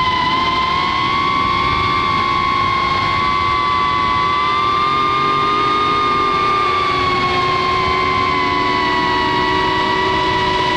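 Cinewhoop FPV drone's brushless motors and ducted propellers whining steadily. The pitch drifts slightly up through the middle and back down, over a rushing noise underneath.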